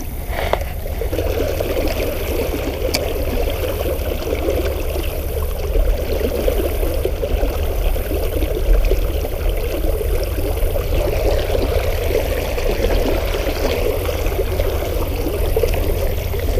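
River water running and rippling steadily, a continuous flowing wash.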